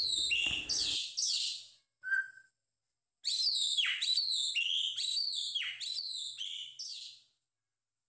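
White-rumped shama (murai batu) singing: a run of high whistled phrases, many sweeping down in pitch. The song breaks off after about a second and a half, with one short note in the pause, and resumes about three seconds in.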